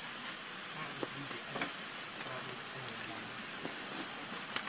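Steady hiss of rain falling on forest leaves, with a few sharp ticks of single drops scattered through it.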